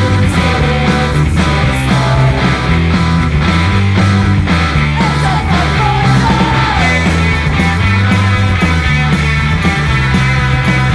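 Punk rock song played by a band at a steady, loud level, with a sliding melodic line about five seconds in.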